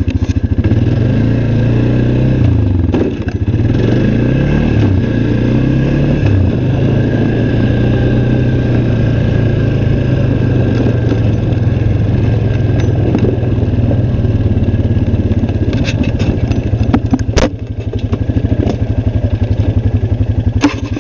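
An engine idling close by, a fast, even low pulse, its pitch briefly rising and falling a few times in the first six seconds. A sharp click about 17 seconds in.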